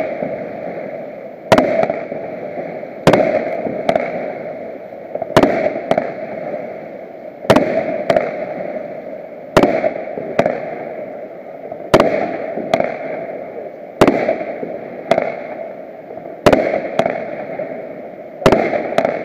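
Fireworks display: aerial shells bursting in quick succession, about sixteen sharp bangs, one every one to two seconds and often in close pairs, each one trailing off over a steady background hiss.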